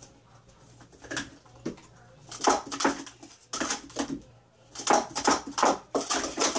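Plastic sport-stacking cups clattering as they are rapidly stacked up and down. A few scattered clicks give way, about two seconds in, to fast runs of sharp clacks.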